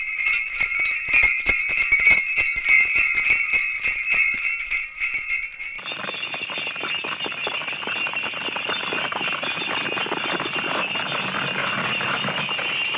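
Cattle bells (bullock neck bells) shaken in a steady rhythm as a foley imitation of bullocks running in a bullock-cart race. About six seconds in the jingling turns denser and more continuous.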